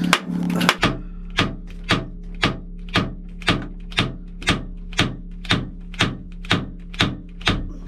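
Hammer or mallet tapping on a narrowboat's PMR 150D gearbox casing, a steady run of sharp metallic knocks about twice a second, to free a cover that will not come off. A steady low hum runs underneath.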